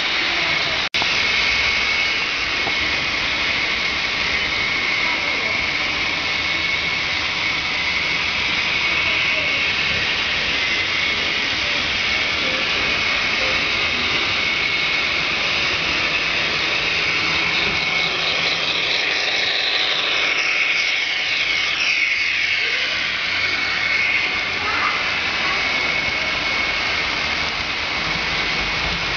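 Model trains running on the layout: a steady whirring hiss of metal wheels on rail and motor whine, with a train sweeping past close by in the second half.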